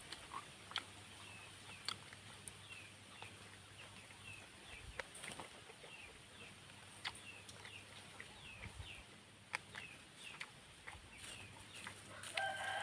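Chickens in the yard: a run of short, high, falling peeps, a few every second, with scattered light clicks, and a fuller call near the end.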